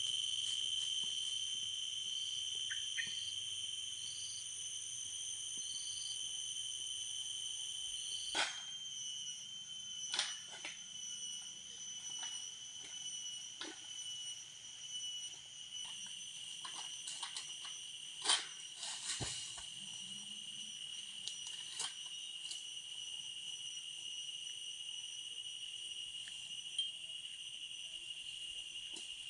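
Steady high-pitched drone of insects, with a few scattered sharp knocks and clicks, the loudest about eighteen seconds in.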